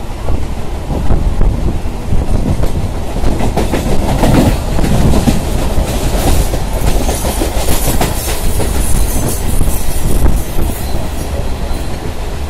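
Electric multiple-unit (EMU) suburban train running at speed, heard from inside at an open window: steady rumble and rushing air with wheels clattering over rail joints. A louder, brighter stretch through the middle fits a lit train passing close by on the next track.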